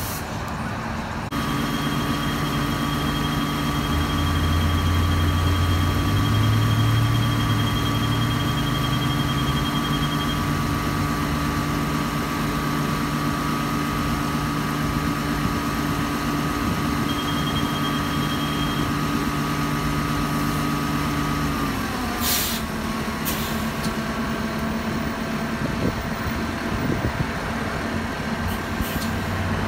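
2010 New Flyer DE40LFR diesel-electric hybrid city bus standing at a stop with its drivetrain running: a steady engine hum with a high, even whine over it. About 22 seconds in, the pitch of the hum and whine steps down and short bursts of air hiss are heard.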